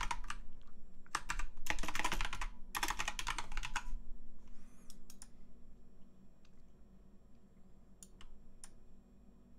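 Fast typing on a computer keyboard in three quick runs of keystrokes over the first four seconds, then a few single clicks, with a low steady hum underneath.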